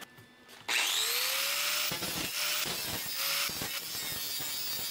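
Electric angle grinder switched on about a second in, whining up to speed, then biting into steel sheet metal in repeated passes as it trims the edge of a tacked-in rust-repair patch panel.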